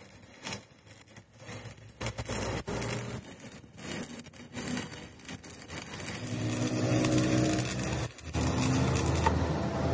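Stick welding on a steel axle housing: the electrode's arc crackling and sputtering steadily. A low hum joins in after about six seconds, with a brief break just after eight.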